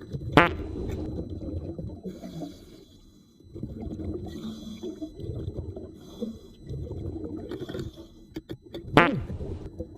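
Muffled underwater rumbling and bubbling that comes and goes, with two short, loud squeaky chirps: one about half a second in and one near the end.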